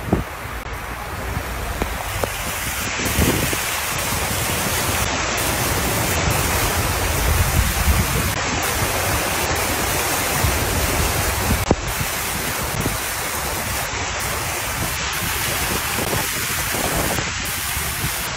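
A car ploughing through floodwater deep enough to cover its tyres, making a loud, steady rush and splash of churned water.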